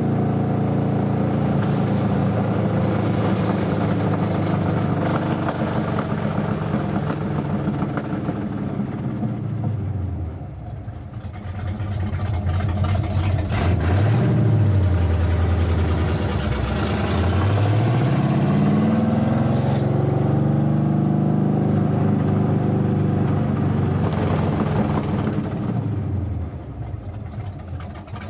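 1966 Pontiac LeMans GTO clone's engine, heard from inside the car, running through open steel headers with a lumpy camshaft. The engine note drops back, then climbs hard twice with a dip between, holds steady, and falls away near the end as the car accelerates and slows.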